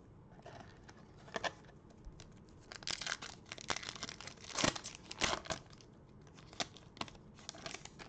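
A foil Panini Prizm basketball card pack being torn open and crinkled by gloved hands: an irregular run of crackling tears and crinkles, busiest in the middle.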